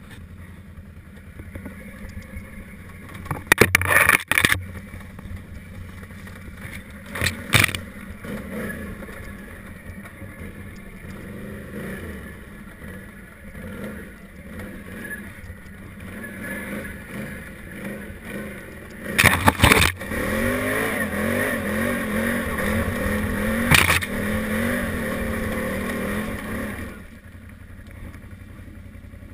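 Can-Am Renegade 800 ATV's V-twin engine pulling at low trail speed, the throttle opening and closing, with several brief loud knocks and scrapes along the way. From about two-thirds of the way in the engine is driven harder, its note wavering up and down, then it drops back near the end.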